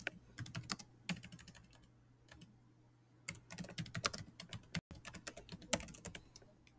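Typing on a computer keyboard: a short run of key clicks, a pause of about two seconds, then a longer run of typing from about three seconds in.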